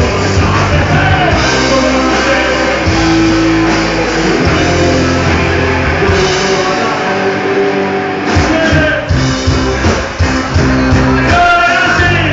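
Live rock band playing loudly, with a sung lead vocal over guitars, bass and drums. About seven seconds in, the bass drops out for a moment, then the full band comes back in with drum hits.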